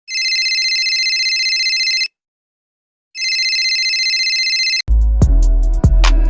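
Electronic telephone ringing: two rings of about two seconds each, a second apart. About five seconds in, loud music with heavy bass and sharp drum hits cuts in.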